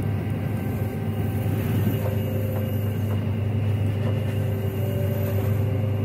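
Combine harvester running steadily in the wheat, a low, even machine drone heard from inside the cab.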